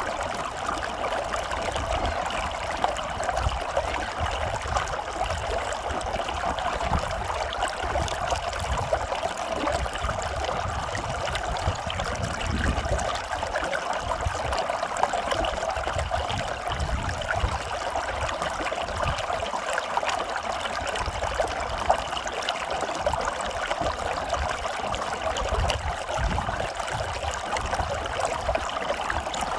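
Running water flowing steadily and without a break.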